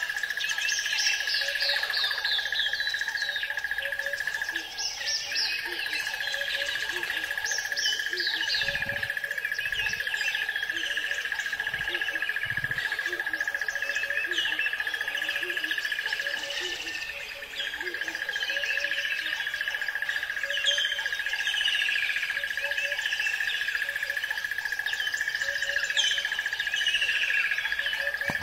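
Birdsong ambience: many birds giving short, falling chirps over and over, over a steady high tone, with soft low calls repeating at an even pace beneath.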